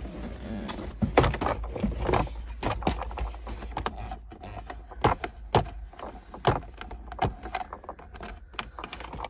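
Irregular clicks and knocks of a hand working at a screw behind the plastic dashboard trim of a van, with plastic parts rattling and tapping.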